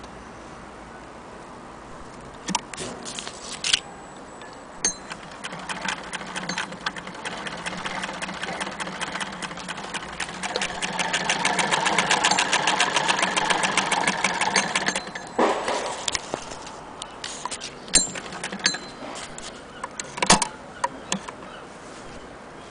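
Hand-cranked Singer 99K sewing machine stitching through denim: a fast, even run of mechanism clicks that grows faster and louder, then stops about fifteen seconds in. A few separate sharp knocks come before and after the run.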